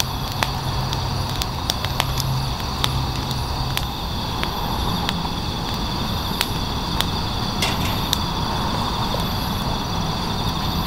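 Wood campfire crackling with sharp pops every second or so, over the steady chirring of night insects in the grass.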